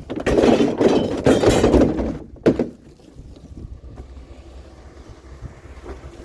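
Clattering and scraping for about two seconds, then a single sharp thunk, followed by a low steady hum.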